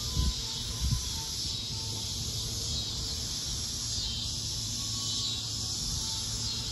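Steady high-pitched insect chorus, with low buffets of wind on the microphone in the first second.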